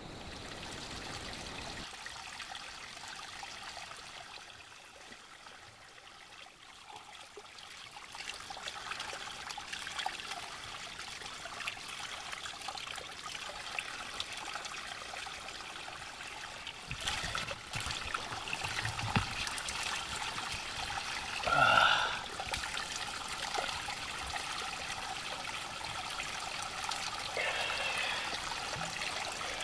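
Water trickling steadily, as from a small forest stream. A short call rises and falls about two-thirds of the way through, and a fainter one comes near the end.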